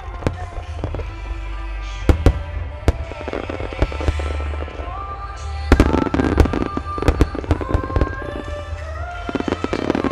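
Fireworks display: shells launching and bursting in sharp bangs, with a dense volley of rapid bangs about six seconds in. Music with long held notes plays throughout.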